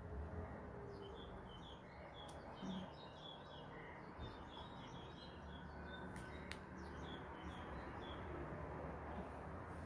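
Faint bird chirping: a run of short, quick, high notes repeated over several seconds, with a few sharp clicks and a low steady hum beneath.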